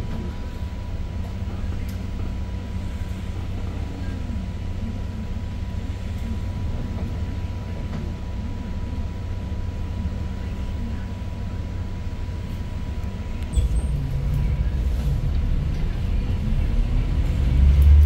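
Daewoo NEW BS090 city bus's GL08P CNG engine, heard from inside the cabin, idling with the bus at a standstill. About two-thirds of the way through it suddenly grows louder and revs up as the bus pulls away, loudest near the end.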